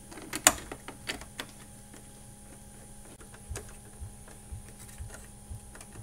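Hand screwdriver with a Torx bit turning a door-handle mounting bolt into the truck door: small metal clicks and taps, the sharpest about half a second in, then a few soft low knocks.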